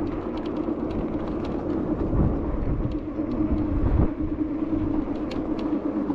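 Juiced Scrambler electric bike in motion: wind buffeting the microphone and road rumble, with a steady hum underneath. Two stronger gusts come about two and four seconds in.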